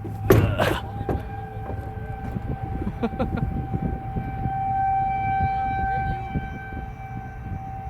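Outdoor civil-defense tornado warning siren sounding one steady tone that swells louder in the middle and fades back. Wind rumbles on the microphone underneath, with a short loud gust just after the start.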